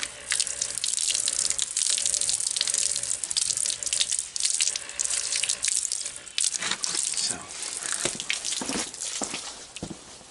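Water from a garden hose spraying and splashing over a puppy's muzzle and beard and pattering onto wet concrete, dying away near the end.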